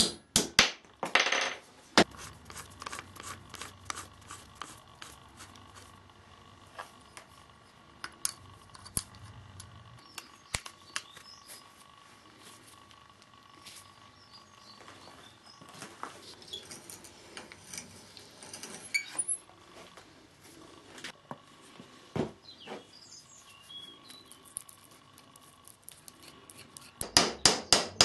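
Hammer striking wooden dowels into wood: a few sharp strikes about a second in, then a quick run of strikes near the end. Between them, only faint scattered clicks.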